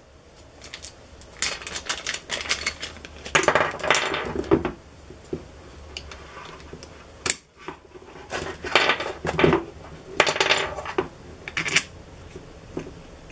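Hard plastic parts of a clamp mount and its jointed flexible arm being handled and fitted together: irregular bursts of clicking and clattering.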